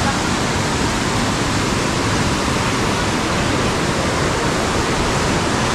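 Mountain river whitewater rushing over boulders: a steady, loud rush of water.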